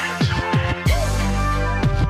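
Electronic soundtrack music with heavy bass: several quick falling bass sweeps in the first second and again near the end, over a steady deep bass line.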